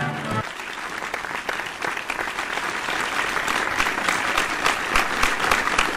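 A crowd applauding, growing louder toward the end, after a short music tune cuts off about half a second in.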